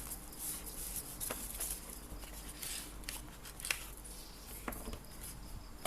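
Packaging being handled during an unboxing: scattered rustling and small clicks and knocks as items are taken out of the box.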